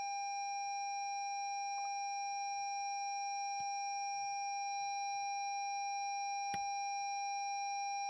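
A steady, unbroken electronic tone at one fixed high pitch, held at a constant level, with two faint clicks partway through.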